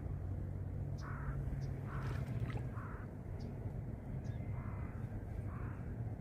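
A crow cawing, about five short caws roughly a second apart, over a steady low rumble.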